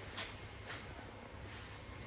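Steady low hum of a plant room's circulator pumps and pipework, with two brief soft hissing swishes about a quarter and three quarters of a second in.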